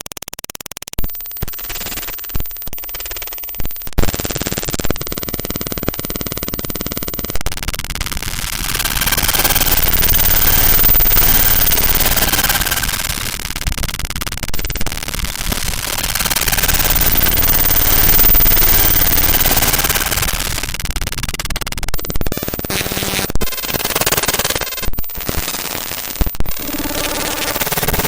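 Computer glitch sound effect: stuttering bursts of digital noise with abrupt cut-outs and clicks, and a short buzzing tone about five seconds in. Through the middle it swells into a dense wash of noise, then breaks back into choppy stutters near the end.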